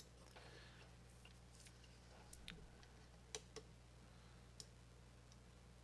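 A handful of faint, scattered clicks of a computer mouse being worked, over a low steady hum.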